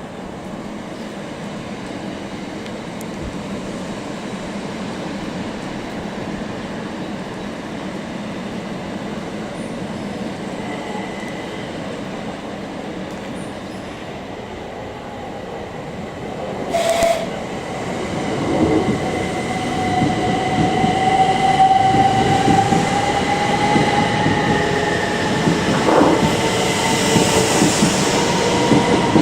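A train approaching and running through a station, its wheel and running noise growing steadily louder, with a brief loud burst about 17 seconds in. From about 18 seconds a whine comes in and rises slowly in pitch as the train nears.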